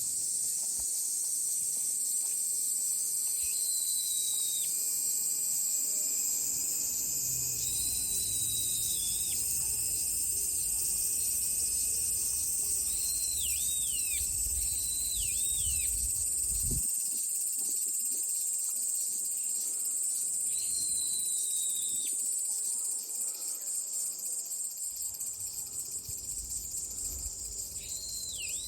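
Steady high-pitched insect drone of a summer chorus, with birds calling now and then in short whistled notes, several slurring downward. Near the end the insect sound turns into a fast, even pulsing.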